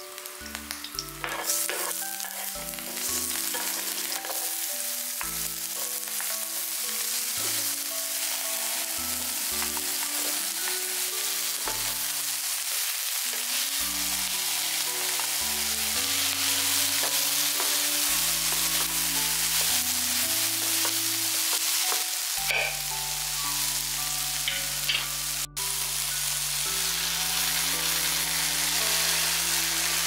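Sliced garlic, then onion, paprika and sausage slices sizzling as they fry in hot oil in a pan, a steady hiss that grows louder over the first few seconds, with occasional clicks and scrapes of stirring.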